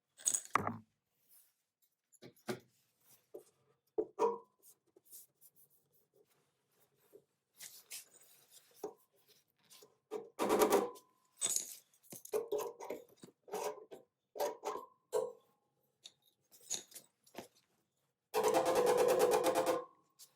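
Scattered knocks and taps on car body sheet metal during dent repair, some with a short ring. Near the end comes a rapid rattling buzz lasting about two seconds.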